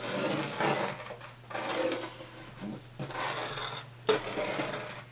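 A drawing tool scratching across paper in several separate strokes, each under a second long, as a square is drawn.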